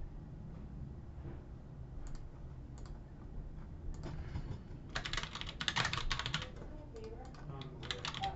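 Typing on a computer keyboard: a couple of single clicks, then quick runs of keystrokes starting about four seconds in.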